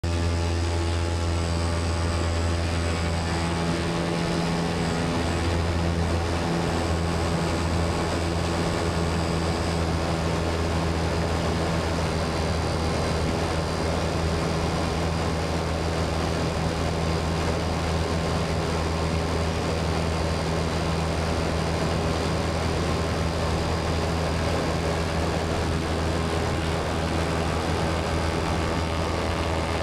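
Ohm electric motor driving an E-Props propeller on a Minifox electric microlight, running steadily in flight: an even low propeller drone over a steady hiss.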